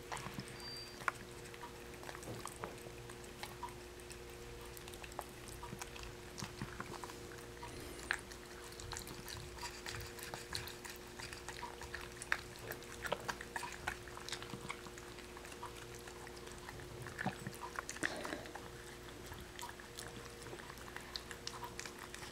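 A cat and then a dachshund licking and chewing wet food from a small hand-held cup: faint wet lapping with many small irregular clicks. A steady faint hum runs underneath.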